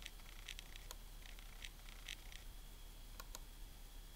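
Faint, irregular clicking from a Macintosh PowerBook 5300cs laptop in use, about a dozen light clicks over a few seconds, with a faint high steady whine coming and going behind them.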